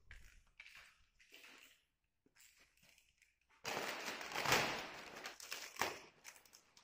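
Paper and plastic wrapping crinkling and rustling loudly as the package is torn and cut open, starting about three and a half seconds in; a few faint soft steps and rustles come before it.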